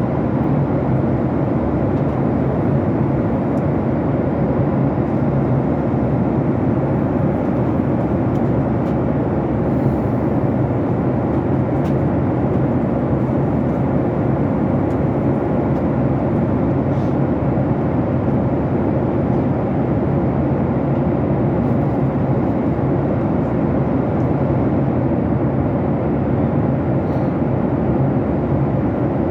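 Steady cabin noise of a jet airliner in flight: the even rush of the engines and the airflow around the fuselage, unchanging throughout.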